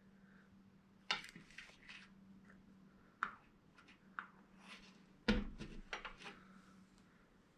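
Small hard accessories and packaging of a camera box being handled and set down: scattered clicks and knocks, the loudest about a second in and just after five seconds in, over a faint steady hum.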